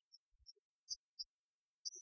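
Near silence, with only a few faint scattered ticks.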